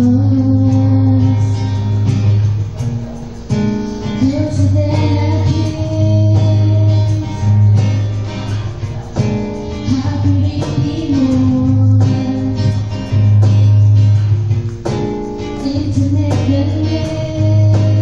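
A woman singing a melody into a microphone over a strummed acoustic guitar.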